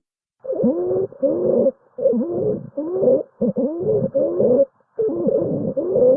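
Recorded lung sounds heard through a stethoscope: musical, wheeze-like tones that slide up and down in pitch, several at once, in short bursts about once a second.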